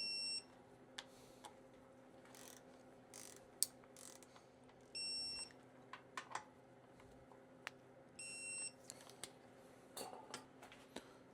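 Electronic torque wrench beeping three times, one short beep each at the start, about five seconds in and about eight seconds in, as each bolt is drawn up to its set torque of 18 foot-pounds. Light clicks and tool handling come between the beeps.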